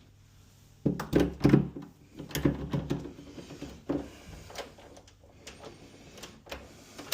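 Winkhaus key-wind multipoint door lock being tested with its key: after a quiet second, a quick cluster of loud clunks, then scattered clicks and knocks as the mechanism throws and draws back its bolts. The lock is working properly.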